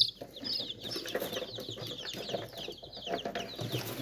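A group of newly hatched chicks peeping continuously. Many short, high calls fall in pitch and overlap, several each second.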